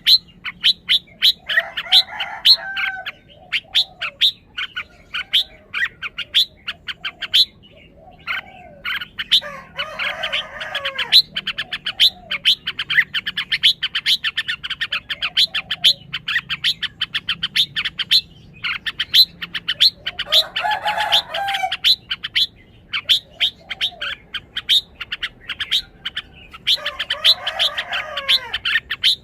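Red-whiskered bulbul calling: long runs of quick, sharp, high chirps, broken four times by a short warbled song phrase.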